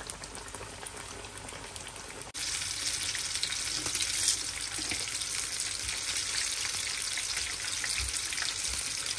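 Gram-flour-battered fish frying in shallow oil in a pan: a steady sizzle with fine crackling, which jumps louder after an abrupt cut about two seconds in.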